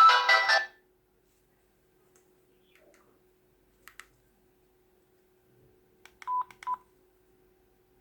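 A mobile phone's melodic ringtone that cuts off suddenly under a second in. After a near-quiet stretch with a faint steady hum and two faint clicks, two short electronic phone beeps sound about two-thirds of the way through.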